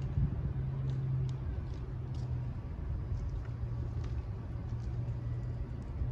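Steady low hum of an idling engine over a low rumble, with a few faint high ticks.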